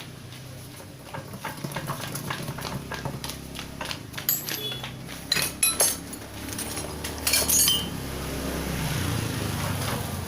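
Metal tools and parts clinking and clanking in quick, irregular runs, with the loudest clanks around the middle and again a couple of seconds later, over a low steady hum.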